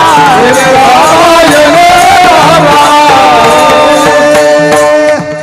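Kirtan singing: a male voice draws out a long melodic line with winding ornaments over a steady held drone and drum. Sharp metallic clicks come in near the end.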